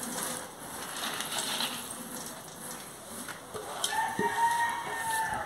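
Dry pumpkin seeds being spread by hand across a clay comal, a soft rustling and scraping. About three and a half seconds in, a rooster crows in one long, slightly falling call lasting under two seconds.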